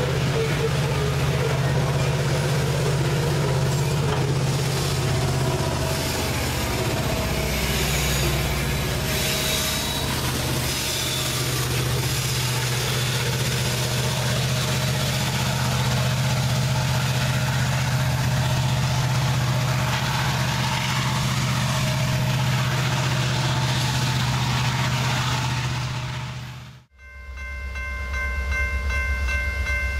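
Loaded coal hoppers rolling past on steel wheels, followed by the trailing BNSF SD70ACe distributed-power diesel locomotive going by with a steady low engine hum. After an abrupt cut near the end, an approaching Norfolk Southern diesel locomotive sounds its horn, a steady multi-note chord.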